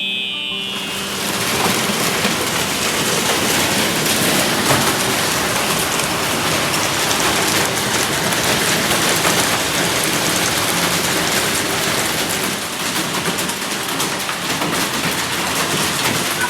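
Hailstorm: heavy rain and hailstones pelting down, a dense steady hiss dotted with many sharp ticks of stones striking hard surfaces. It starts about half a second in.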